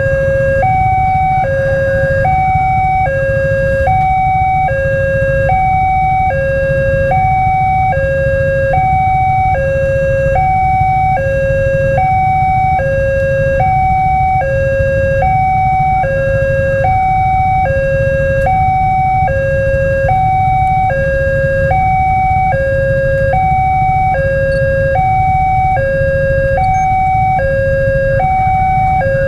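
Railway level-crossing warning alarm sounding from the loudspeaker on the crossing signal post: an electronic two-tone alert alternating high and low, about one high-low pair a second, warning of an approaching train. Under it runs a steady low rumble.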